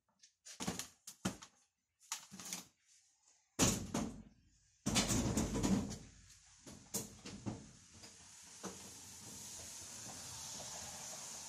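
A run of sharp knocks and clatter, then two heavy bangs about three and a half and five seconds in, followed by a steady hiss that builds toward the end: work noise from handling tools and parts under the truck.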